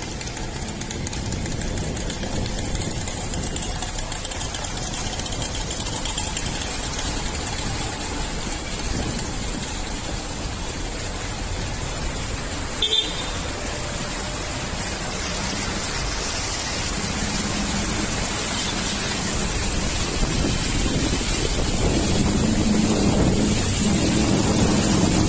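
Road traffic on a waterlogged street: a steady wash of vehicle and road noise, with one short, high horn toot about halfway through. An engine hum grows louder over the last few seconds.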